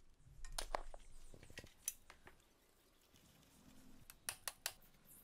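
Faint scattered metallic clicks and taps of hand tools on a rusty motorcycle's front end, ending in three quick light taps of a hammer on a punch.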